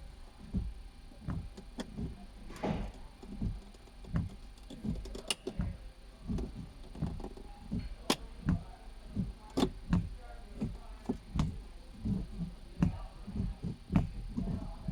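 Irregular light knocks and thumps, a few a second, with several sharp clicks, from hands and tools working on a car's interior trim and parts.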